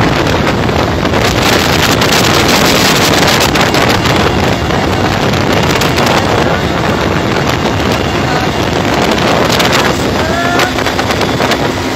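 Helicopter engine and rotor running, a loud steady roar heard from inside the cabin.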